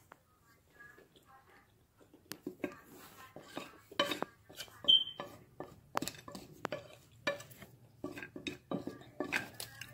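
A spoon scooping crushed clay, clicking and scraping against the container in quick, irregular strokes that start about two seconds in, with one brighter, ringing clink near the middle.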